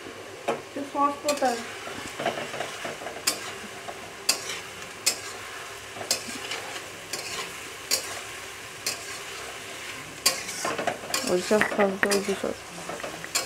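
Chopped vegetables sizzling in hot oil in a metal wok while a metal spatula stir-fries them, scraping and knocking against the pan about once a second.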